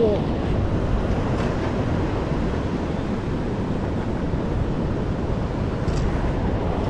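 Surf washing over a rock ledge, with wind buffeting the microphone: a steady rushing noise, strongest at the low end.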